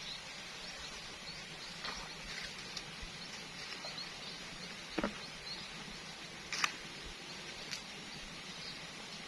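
Steady outdoor hiss broken by a few scattered light clicks and knocks, the sharpest about five seconds in and another about a second and a half later.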